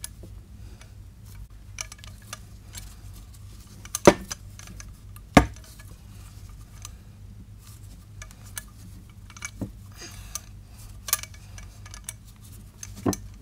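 Handling noise from wrapping a steel motorcycle exhaust downpipe in fiberglass heat wrap: scattered clinks and knocks of the pipe against the workbench, with two sharp louder knocks about four and five and a half seconds in. A low steady hum runs underneath.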